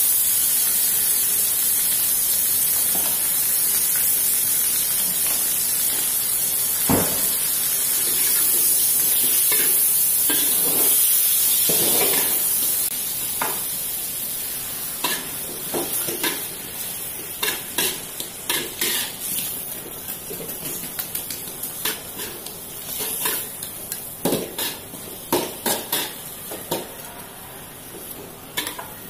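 Shrimp, egg and greens sizzling in a hot aluminium wok, with a metal spatula scraping and clacking against the pan as the stir-fry is turned. The sizzle is steady at first and fades after about thirteen seconds, while the spatula strokes come quick and frequent in the second half.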